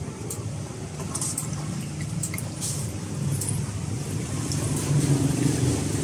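Knife scraping and cutting small fish on a wooden chopping block: scattered short, wet scrapes and taps over a steady low rumble.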